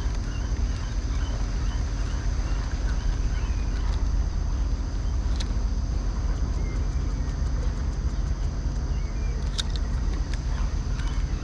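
Steady low rumble of open-air ambience on a kayak on the sea: wind on the action-camera microphone and water against the plastic hull, with a faint high hiss, small chirps, and a couple of short clicks from handling the rod and reel.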